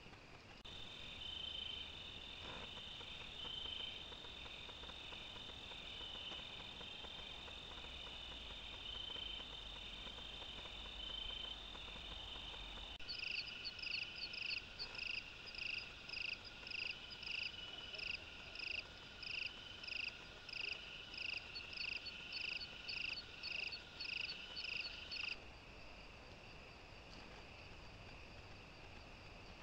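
Night insects calling: a steady high trill with a pulsing chirp beneath it, changing abruptly about thirteen seconds in to a louder, rhythmic chirping about twice a second. That chirping stops about twelve seconds later, leaving a fainter steady trill.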